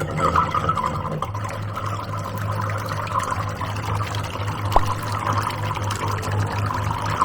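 Electric outboard motor, run on a 4S battery, test-running steadily with a hum and a rushing hiss, now spinning the right way after its wires were swapped. A single short tick about five seconds in.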